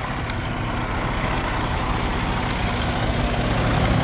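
Grain-hauling semi truck's engine running steadily, a low hum with a steady drone that slowly grows louder.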